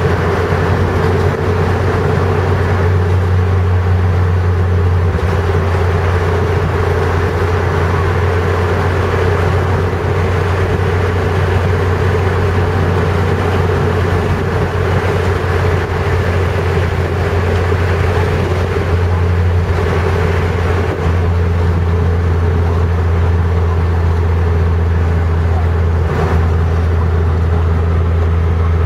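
Steady engine and tyre noise inside a moving car's cabin: a constant low hum with road hiss that holds even throughout.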